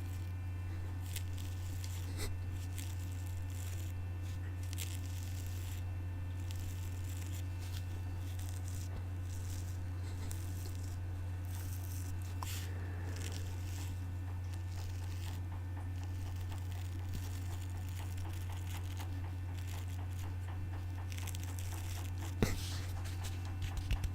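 Steady low electrical hum with scattered faint crackles and small taps, a few sharper taps near the end.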